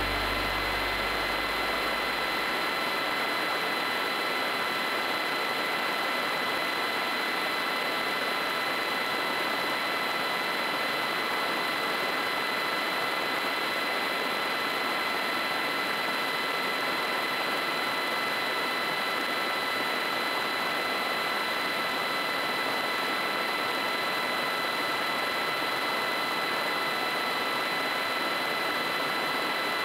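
Rotax 912UL four-cylinder engine and propeller of a Kolb Mark III ultralight droning steadily in cruise flight, mixed with rushing wind noise.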